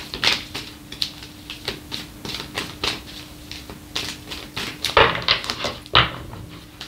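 Tarot cards being shuffled by hand: a run of light, irregular clicks and flicks, with two louder slaps about five and six seconds in.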